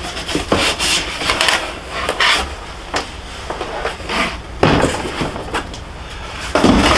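Cardboard box and packaging being handled while unpacking a motorcycle helmet: irregular rustling, scraping and knocks, with a heavier bump near the end.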